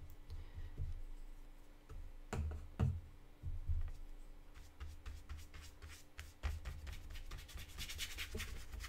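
Flat watercolour brush worked in a paint palette and then stroked across cold-pressed watercolour paper: a few soft knocks a couple of seconds in, then a quick run of light scratchy brushing that grows busiest near the end.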